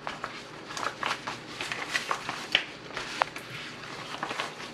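Fresh ti leaves rustling and crackling as they are folded by hand around a raw steak, in irregular crisp crinkles and soft leafy brushing.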